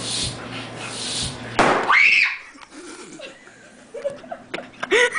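A road bike tire, over-inflated with a floor pump, bursts with a single loud bang about a second and a half in, splitting the tire open. A short scream follows at once, and laughter starts near the end.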